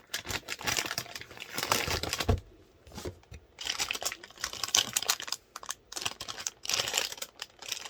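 Packaging crinkling and rustling as a motherboard box is opened and the board is unpacked, in two spells of handling with a short lull about two and a half seconds in.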